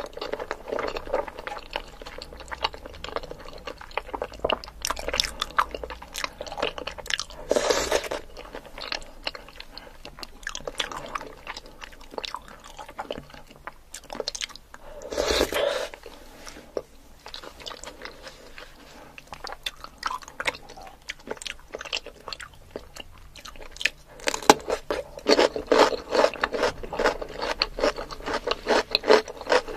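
Close-miked mukbang eating: wet chewing and smacking of soft-boiled egg and shrimp in sauce, with a few louder slurpy swells. From about three-quarters of the way in, a dense run of crisp crunching as raw cucumber is bitten and chewed.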